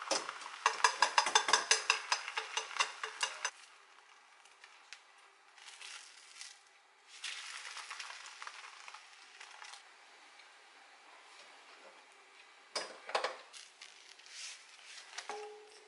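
Thin egg omelette sizzling in a black iron frying pan, with a fast run of chopstick taps and scrapes against the pan over the first three seconds or so. A clatter of the pan comes about 13 seconds in, as it is tipped to slide the omelette out.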